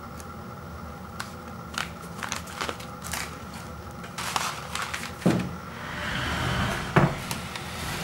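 Paper microwave-popcorn bag being unfolded and handled: scattered crinkles and taps, a longer rustle about six seconds in, and a thump about seven seconds in, over a steady faint hum.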